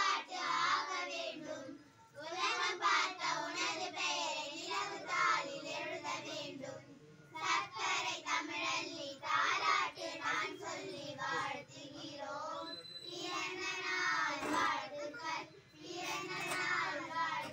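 A child singing a Tamil song unaccompanied, in long phrases with short pauses between them.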